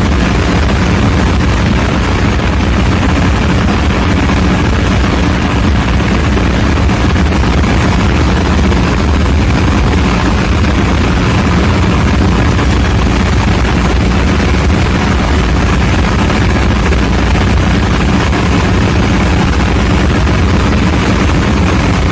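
Diesel engine machinery in a ship's engine room running steadily and loudly: a constant low drone with a deep hum under it, unchanging throughout.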